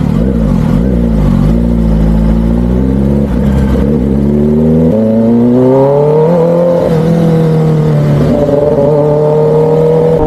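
Kawasaki ZX-10R superbike's inline-four engine running under way, its pitch wavering, then climbing about halfway through and holding steady as the bike accelerates.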